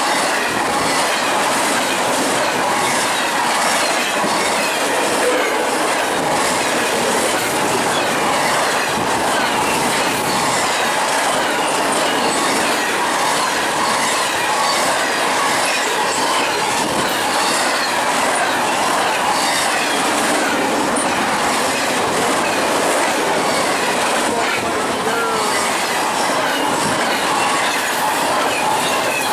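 Double-stack intermodal well cars passing at about 70 mph: a steady, loud rush of steel wheels on the rails, with a fast clickety-clack and now and then a brief wheel squeal.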